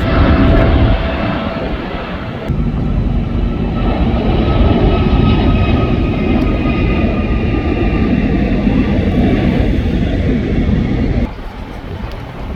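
Jet airliner engines: a loud, deep rumble with a faint high whine that sinks slightly in pitch. The sound changes abruptly about two and a half seconds in and drops sharply in level near the end, as at cuts between recordings.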